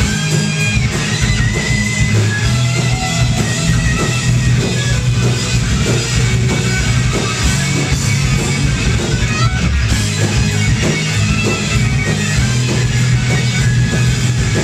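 Live rock band playing loudly: electric guitars, bass guitar and a drum kit, with a steady drumbeat.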